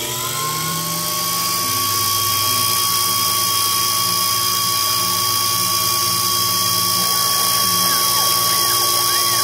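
Sherline CNC milling machine spindle at about 10,000 rpm with a carbide tool in 7075 aluminium. The spindle is just reaching speed at the start, then runs at a steady high-pitched whine. From about seven seconds in, a rising-and-falling tone repeats under the whine as the machine's axis motors move the cut.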